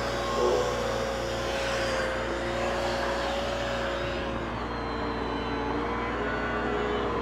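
Angle grinder running against a steel pipe joint, a steady motor whine that sags lower in pitch about halfway through as it bears down, with the low steady hum of an engine-driven welding machine underneath.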